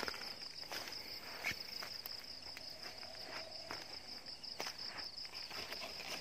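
Night insect chorus, a steady high-pitched ringing, with scattered light steps and rustles of someone walking through low plants.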